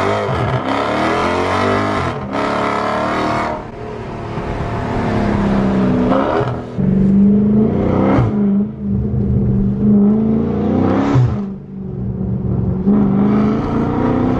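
Dodge Charger Scat Pack's 392 Hemi V8 accelerating hard, heard from inside the cabin. The engine note climbs in pitch several times, each climb ending in a quick drop as the transmission shifts up.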